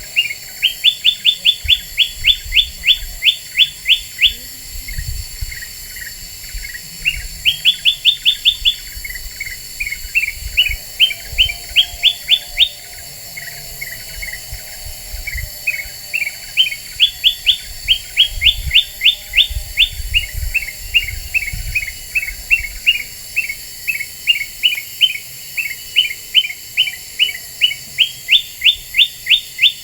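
Kutilang emas, a bulbul, singing its lure song: runs of quick rising whistled notes, about five a second, broken by shorter lower chips, repeating over and over.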